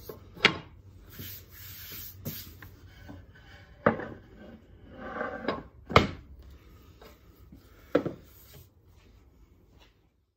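A hand plane and a wooden panel being handled on a workbench: four sharp knocks of wood and metal on the bench, the loudest about six seconds in, with some rubbing and smaller clicks in between.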